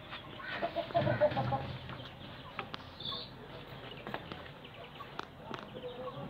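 A chicken clucking in short pitched calls about a second in, over scattered light clicks and taps of metal pump parts being handled.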